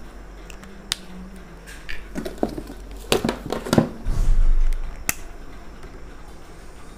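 Marker drawing on a whiteboard: a run of short scratchy strokes in the middle, sharp taps about a second in and about five seconds in, and a low bump just after four seconds.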